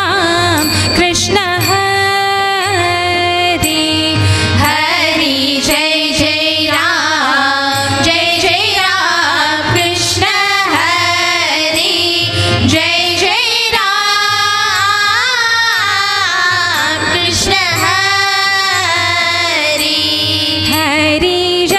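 Devotional bhajan: women's voices singing a wavering, ornamented melody over steady drum beats and sharp percussion strikes.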